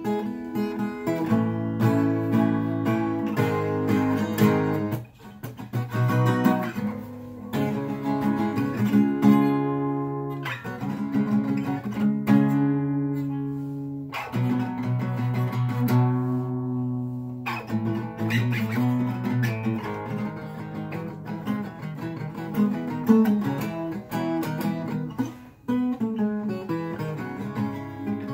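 Twelve-string acoustic guitar being strummed, its chords ringing out, with a brief drop in the playing about five seconds in.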